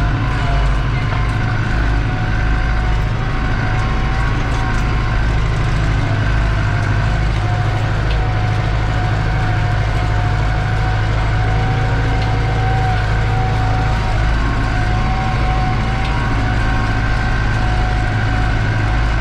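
New Holland TD85 tractor's turbo diesel engine running steadily under load while pulling a disc harrow, heard inside the cab. A deep engine drone carries a steady turbo whine above it.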